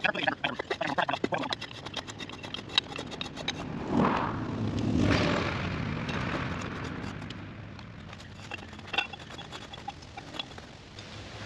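Rapid clinking and rattling as a bar is fitted into the head of a steel mailbox ground-anchor screw and turned to drive it into the soil, followed by a rush of noise that swells and fades in the middle and a few more clinks near the end.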